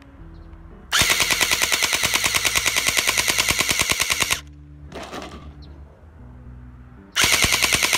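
Toy gel blaster firing on full auto in two long bursts of rapid, evenly spaced shots. The first starts about a second in and lasts about three and a half seconds; the second starts near the end.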